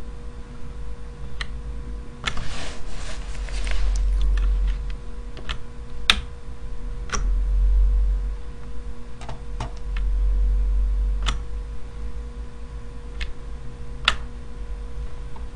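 Computer mouse clicks at irregular intervals, with a short run of rapid keyboard-like clicking about two seconds in, over a steady electrical hum and low rumble.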